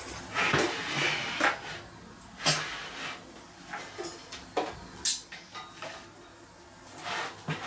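A plasma cutter's sheet-metal case and its torch cables being turned and handled on a steel workbench: a string of separate knocks, clicks and scrapes with rustling between them.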